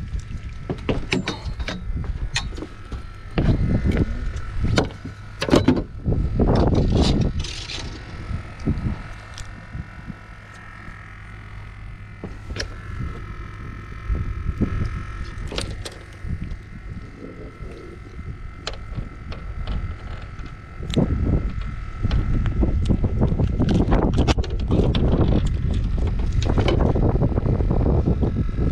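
A landing net and a freshly netted fish being handled on a fibreglass boat deck: scattered knocks, clicks and rattles of the net frame and mesh. Wind rumbles on the microphone at the start and again in the last several seconds, and a faint steady whine sits underneath from about a third of the way in.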